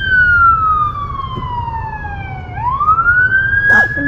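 A siren wailing: its pitch falls slowly, then about two and a half seconds in it sweeps quickly back up, over the low steady rumble of the car.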